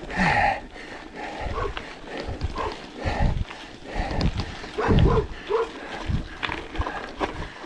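A dog barking repeatedly in short barks, about one a second.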